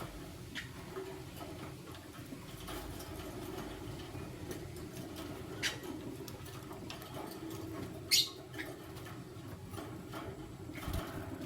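Lovebirds giving a few brief, sharp high chirps, the loudest about halfway through and again a few seconds later, among faint small clicks.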